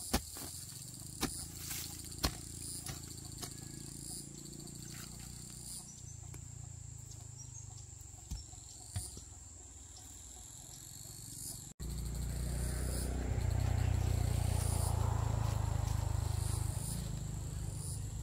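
Insects chirping steadily in the background, with scattered knocks and taps. After an abrupt cut about twelve seconds in, a louder low rumbling noise comes in.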